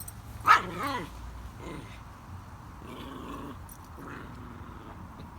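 A pet dog barking once, loudly, about half a second in, then making a few quieter vocal noises.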